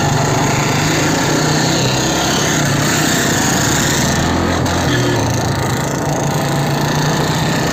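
Motorcycle engine running steadily at speed, with a dense rushing hiss over it.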